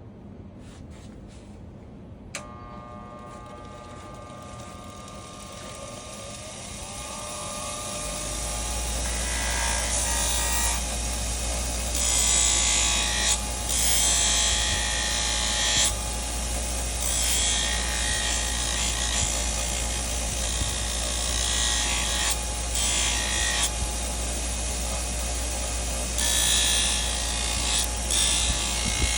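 Electric grinder switched on with a click about two seconds in, its motor humming as it spins up. A blade is then pressed against it in repeated passes, a rasping hiss that comes and goes over the steady motor hum.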